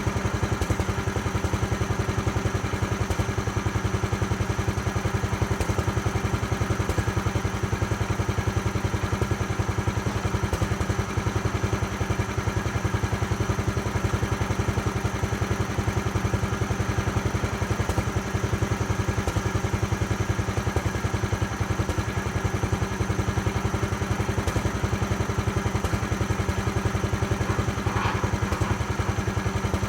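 Homemade sawmill's engine running at a steady speed, with no change in pitch or load.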